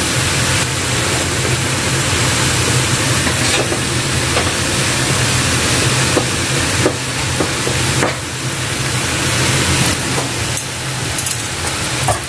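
Shredded bamboo shoots and chilies sizzling as they stir-fry in a wok over a steady low hum, with a few sharp clicks of the metal spatula now and then.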